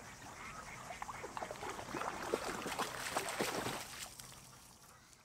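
A dog splashing in shallow lake water as it paddles to the bank and clambers out: a quick run of irregular splashes and sloshing, loudest in the middle, then fading away.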